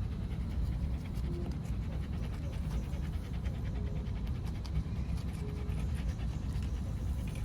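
Dog panting steadily, over a constant low rumble.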